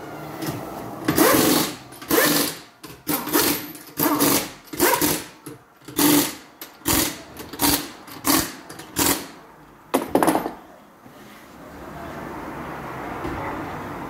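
Pneumatic impact wrench run in about a dozen short bursts, typical of running down and tightening a wheel's lug nuts after a tyre change. A steady, quieter noise follows near the end.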